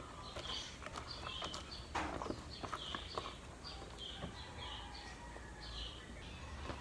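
Hands squeezing and rubbing ripe black pepper berries in a bowl of water, with wet squishing and light clicking of the seeds, over and over, several times a second, to strip the pulp from the seeds.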